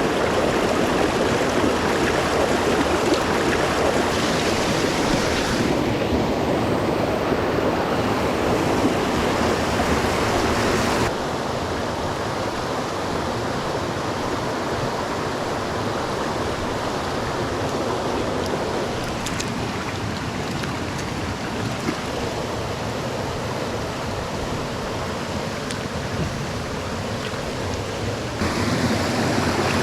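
Rushing water of a mountain trout stream, a steady noise that drops abruptly in level about a third of the way through and comes back up near the end.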